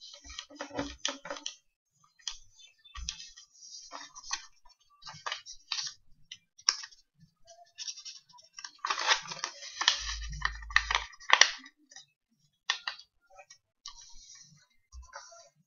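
A sheet of A4 paper being folded by hand on a wooden tabletop: irregular rustling and crackling as the creases are pressed and smoothed flat. It is loudest about nine to eleven seconds in, with a dull low thump beneath it.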